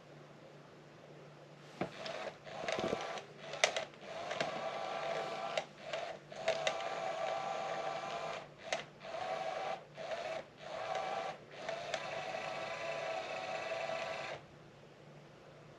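Small electric motor of a battery-powered cat toy whirring in spurts, starting and stopping every second or two with short pauses, with a few sharp clicks in the first seconds; it stops near the end.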